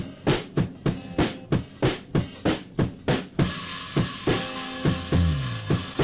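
Background music with a steady drum beat of about three hits a second; a sliding bass line and sustained higher instruments come in about three and a half seconds in.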